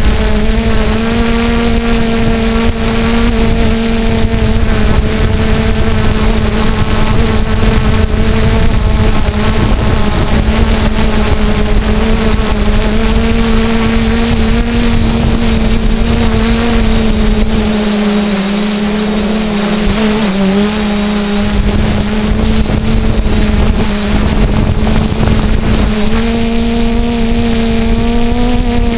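Multirotor drone's electric motors and propellers hovering, a steady hum at a constant pitch heard from the drone itself. A low rumble under it drops away for a few seconds past the middle.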